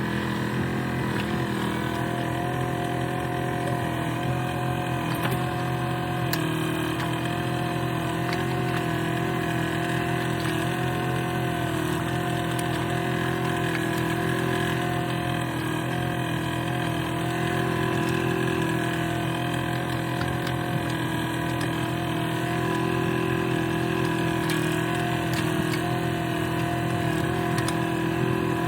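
Yanmar mini excavator's diesel engine running steadily while the machine is worked off a truck bed onto a dirt ramp, one tone wavering slightly up and down as the load on it changes.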